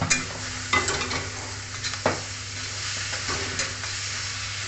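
Raw chicken pieces sizzling in hot oil with browned onions in a metal kadhai, stirred with a metal spatula that scrapes and knocks against the pan several times over a steady frying hiss.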